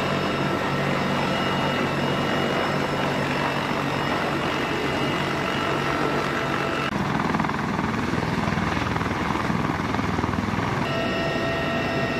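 Military helicopter running loud and steady, heard from inside the cabin with the rear ramp open: rotor noise with a steady turbine whine. About seven seconds in, the whine drops away and a deeper rumble takes over for a few seconds before the whine returns.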